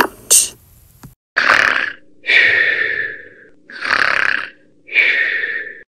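Cartoon snoring sound effect for a sleeping cat: two slow snores, each a rough breath in followed by a longer breath out.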